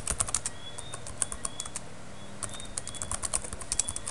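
Computer keyboard typing: quick runs of keystrokes with a short pause a little before halfway.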